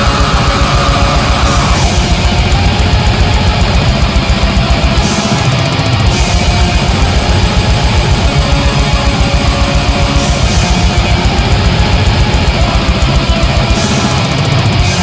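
Raw war metal recording: heavily distorted guitars over fast, dense drumming, loud throughout.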